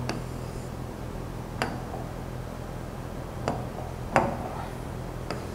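A pen tapping against a writing surface while a circle is drawn: four light, sharp clicks spread over several seconds, over a steady low room hum.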